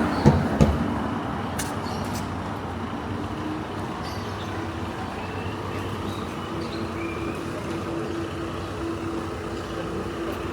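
City street traffic noise with a steady hum from a vehicle's engine. Two low thumps come close together in the first second.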